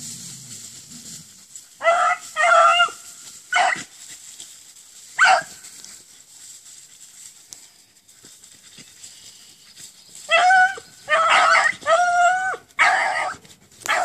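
Beagle hounds baying: a few short yelping calls in the first seconds, a quiet spell, then a run of longer, drawn-out bawls from about ten seconds in.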